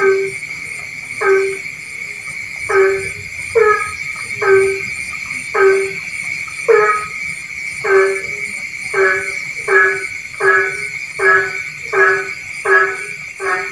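A frog calling over and over, a short croak with several stacked tones about once a second, coming a little faster toward the end. A steady high-pitched drone runs underneath.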